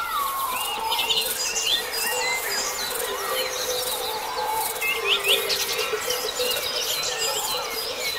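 Several birds chirping and singing at once in a morning bird chorus, quick overlapping chirps and trills, with a lower warbling phrase right at the start. A steady low tone runs underneath.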